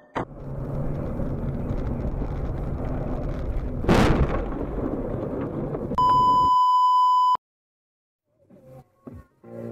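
Loud, steady rushing noise of a vehicle crash, with one violent impact about four seconds in. It is followed by a loud, steady high beep lasting over a second, then the sound cuts off suddenly.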